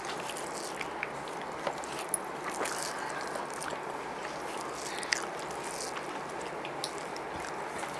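Quiet eating by hand: fingers mixing chicken biryani rice on banana leaves and chewing, with scattered soft clicks over steady room hiss.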